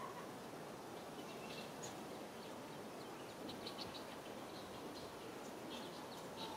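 Faint outdoor ambience: a steady low hiss with scattered short, high bird chirps, including a quick run of them about three and a half seconds in.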